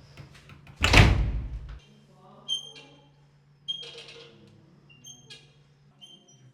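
Percussion being struck: one loud, deep thump about a second in, then four light strikes, each ringing briefly with a high, clear tone.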